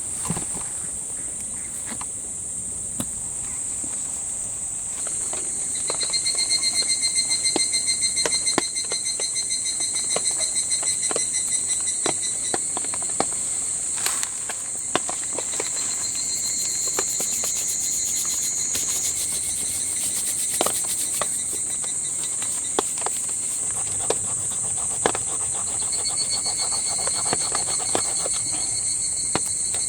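A steady, high-pitched chorus of insects trilling, joined for a few seconds after the first five, and again near the end, by a second, lower insect call. Scattered light ticks and taps sound over it.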